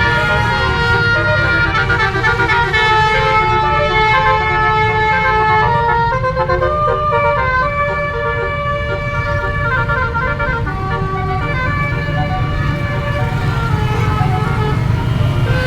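Basuri horn, a set of melodic multi-tone air horns on a vehicle, playing a tune in held notes that step from pitch to pitch, over a steady engine rumble.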